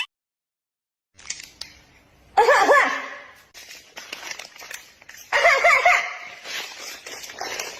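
Two bursts of laughter after a brief silence, the first about two and a half seconds in and the second a little past the middle.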